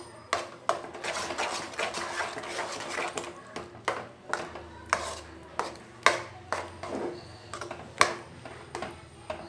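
Metal spoon scraping and clinking against a metal pan while stirring thickened, sticky Bombay karachi halwa. The scrapes come irregularly, about one or two a second, with the sharpest clinks about six and eight seconds in.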